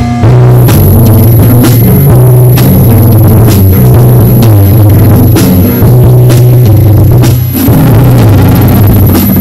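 Loud, noisy rock music from a band: drum kit, bass guitar and guitar. A thin high whine runs over it from about a second in, and the music dips briefly about seven and a half seconds in.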